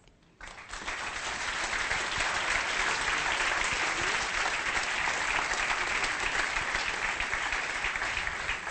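Audience applause in a large hall, starting about half a second in after a brief hush, holding steady and thinning slightly near the end.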